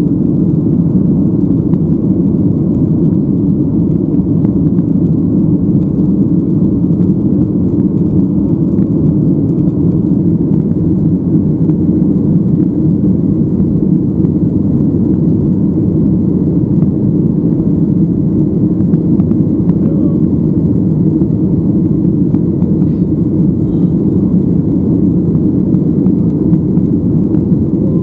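Steady, loud cabin noise inside a Boeing 737-800 climbing after takeoff: the CFM56 engines at climb power blending with the rush of air past the fuselage, a deep even drone without changes.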